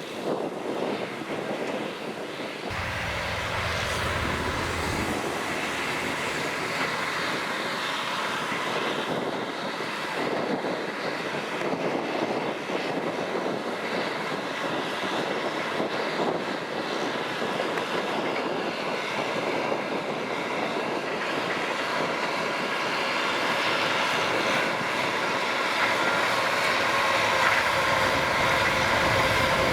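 Kubota M6040SU tractor's diesel engine running steadily while plowing, growing somewhat louder toward the end.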